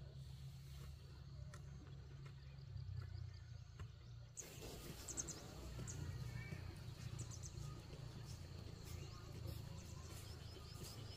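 Outdoor ambience: birds chirping briefly and repeatedly over a low steady rumble, the chirps starting about four seconds in.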